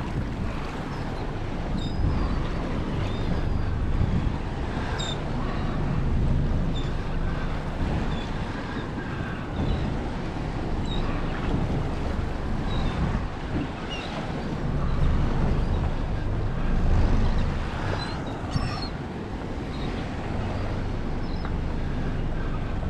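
Wind buffeting the microphone and choppy sea water sloshing around a small boat. Faint, short, high calls of seabirds are scattered throughout.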